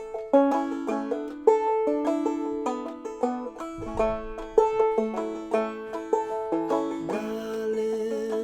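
Five-string banjo played clawhammer style: a steady run of plucked melody notes over a ringing drone string.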